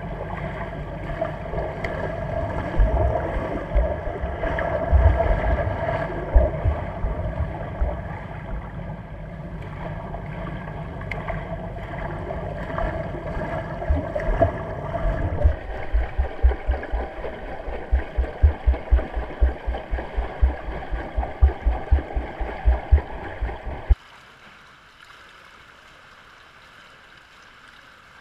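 Water churning from a swimmer doing front crawl, heard muffled from underwater, with irregular low thumps. About halfway through the thumps settle into a steady run of two or three a second. Near the end this cuts off suddenly to a much quieter, steady water hiss.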